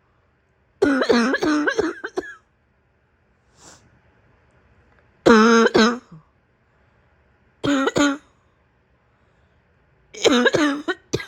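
A woman coughing in fits, with voice in the coughs: a quick run of coughs about a second in, then single hard coughs every two to three seconds, and another run near the end. There is a short breath in between.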